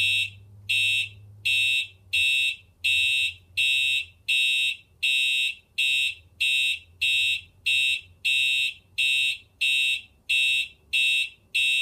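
Fire alarm horn sounding in slow march-time coding: evenly spaced blasts of a steady high tone, about one and a half a second.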